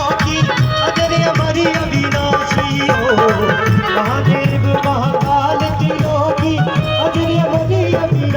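Instrumental interlude of a live Hindi devotional bhajan: a melody line over a steady hand-drum rhythm, with no lead vocal.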